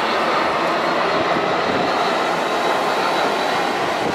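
Twin-engine jet airliner on approach with its landing gear down, its engines making a steady rushing noise as it passes overhead.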